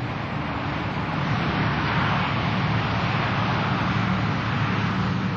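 Busy road traffic: a steady rush of tyres and engines with a low engine drone beneath, swelling over the first couple of seconds and easing toward the end.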